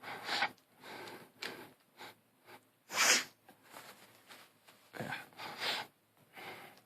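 Loose plastic pieces of a 7x7 puzzle cube rustling and clicking in short, irregular bursts as they are searched through by hand, with one louder hissing burst about three seconds in.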